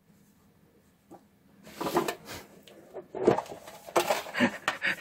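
Tin chocolate-box speaker enclosure being picked up and tilted by hand, giving a few irregular metal knocks and scrapes. It is quiet for about the first second and a half.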